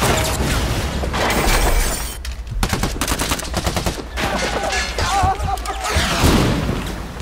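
Volleys of automatic gunfire in a film battle soundtrack, including a fast run of shots about two and a half seconds in, over a continuous din of battle noise.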